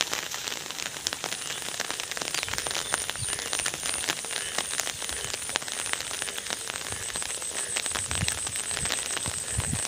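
Steady rain falling, heard as a dense, even crackle of close raindrops.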